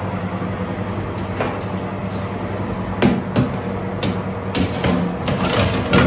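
A metal baking tray being slid into an oven: a series of knocks and clacks as the tray meets the oven rack and the oven door is handled, over a steady low hum.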